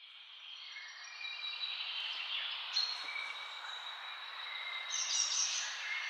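Many birds chirping and singing at once, a dense chorus of overlapping calls that fades in and grows louder over the first second.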